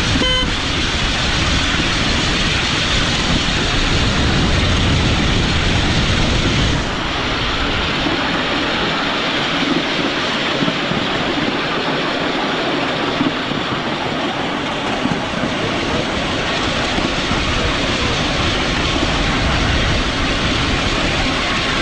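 Miniature railway train running along its track: a steady rushing noise, with the deep rumble dropping away abruptly about seven seconds in.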